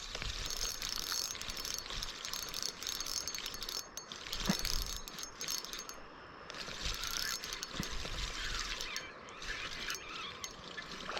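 Fishing reel being cranked to bring in a hooked fish, its gears ticking steadily, with short pauses about six and nine seconds in.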